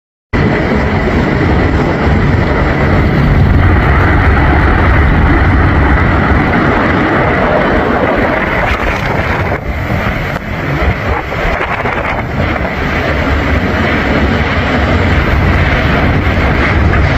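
Severe thunderstorm wind blowing hard and buffeting the microphone in a loud, steady rush. It starts abruptly a moment in.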